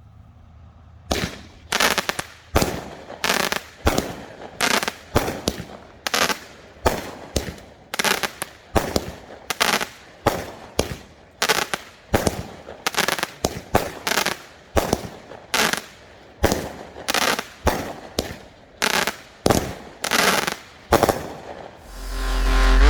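A 16-shot, 200-gram consumer firework cake firing, a steady run of sharp bangs nearly two a second. Electronic music fades in near the end.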